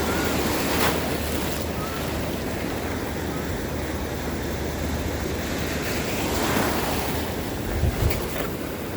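Sea surf washing on the shore, steady throughout, with wind rumbling on the microphone and a couple of low bumps about eight seconds in.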